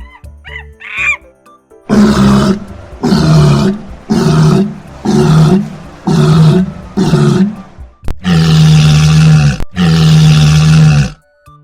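A large animal calling loudly: six short calls about one a second, then two long drawn-out calls near the end.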